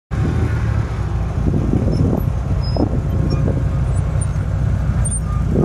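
Engine of a sporting trials car running at low revs while the car descends a grassy slope: a steady low rumble.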